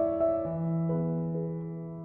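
Soft background piano music: a few notes at a time, each ringing and slowly fading.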